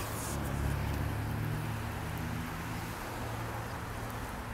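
Motor vehicle engine running with a low, steady hum, over the noise of street traffic. The hum is strongest in the first couple of seconds.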